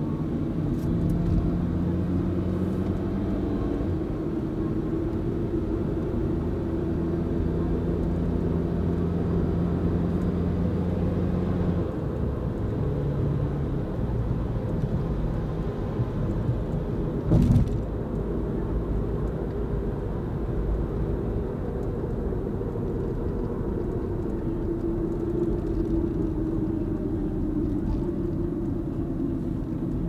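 Car engine and tyre noise heard from inside the cabin while driving, a steady low hum. The engine note changes about twelve seconds in, and there is one loud thump a little past halfway.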